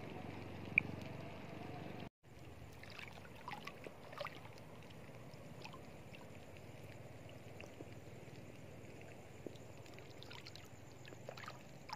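Faint splashing and trickling of shallow seawater as someone wades across a sandy seagrass flat, with scattered small clicks. There is one sharp click under a second in, and the sound cuts out completely for a moment about two seconds in.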